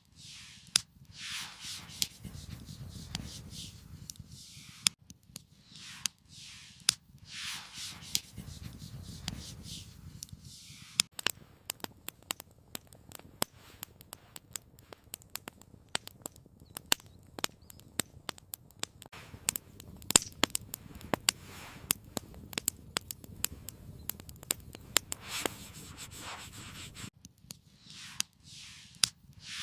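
Wood campfire crackling, with frequent irregular sharp pops and snaps over a low steady rumble. A few soft rushing swells of noise come and go in the first ten seconds and again near the end.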